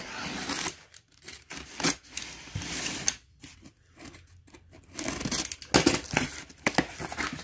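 Packaging being torn open and handled: irregular ripping and crinkling in short bursts with brief pauses.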